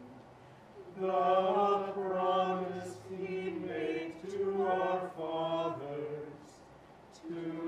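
Voices singing a chant-style liturgical canticle in held notes that step between pitches. It comes in two phrases, with brief pauses at the start and about six seconds in.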